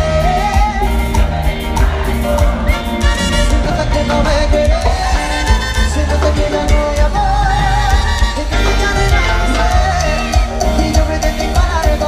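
Live cumbia band playing a song at full volume, with strong bass and a wavering melody line on top.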